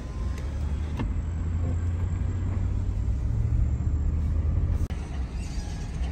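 Steady low rumble of a pickup truck's engine and tyres heard from inside the cab as it drives slowly, with a single sharp click about a second in.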